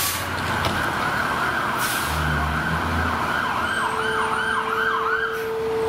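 Emergency vehicle siren in a fast yelp, its pitch sweeping up and down several times a second, over a low engine rumble. A steady tone joins about four seconds in.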